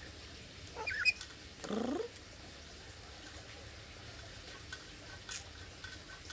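Black-capped lory giving two short calls about a second in, the first ending in a sharp click and the second sliding upward in pitch; a single sharp click follows about five seconds in.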